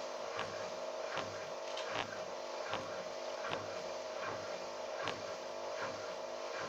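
Atlant washing machine running: a steady motor hum with a sharp knock repeating evenly, a little faster than once a second.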